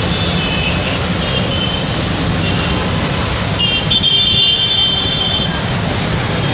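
Large street fountain gushing and splashing steadily over its basin, mixed with passing traffic on a busy road. Vehicle horns sound several times, the loudest from about three and a half seconds in, lasting over a second.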